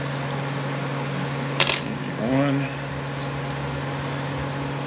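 A small metal part clinks once on a hard surface about a second and a half in, with a brief bright ring, over a steady low hum.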